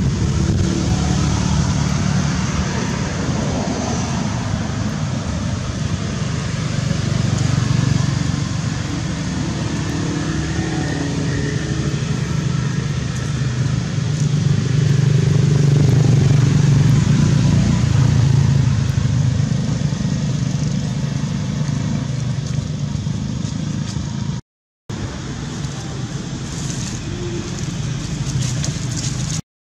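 Steady low rumble with a lighter hiss over it, outdoor background noise that drops out for a moment twice.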